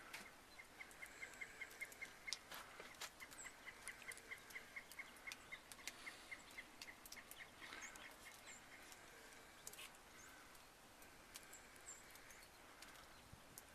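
Faint bird calls: a bird repeats a short note about four times a second for several seconds, with scattered higher chirps.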